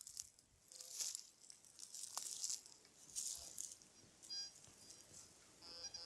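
Faint forest ambience: soft, high rustling now and then, with a few short, faint high chirps in the second half.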